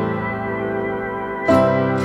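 Background music: sustained chords, with a new chord struck about one and a half seconds in.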